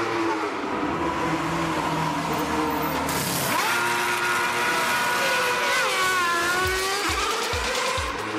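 Race car engine at high revs: its pitch climbs sharply about a third of the way through, holds, then dips and wavers, with a few low thumps near the end.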